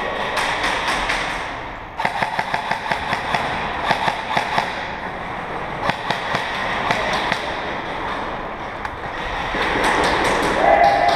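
Airsoft guns firing in rapid bursts of sharp clicking shots, densest from about two to five seconds in, with scattered shots after.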